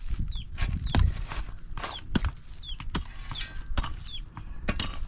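Pickaxe and shovel digging stony, dry ground: irregular sharp knocks and scrapes of the tools on soil and rock, roughly two a second. Short falling bird chirps repeat over them.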